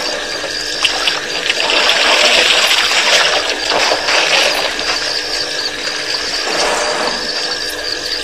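Water running and splashing at a waterhole, a steady rushing noise that swells for a couple of seconds about two seconds in.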